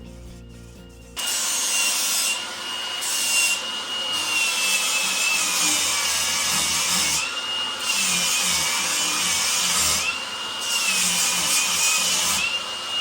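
Angle grinder with a flap disc grinding steel weld joints, starting about a second in. The motor whine dips slightly in pitch while the disc bites and rises again in the several short gaps where the disc is lifted off and the grinding hiss stops.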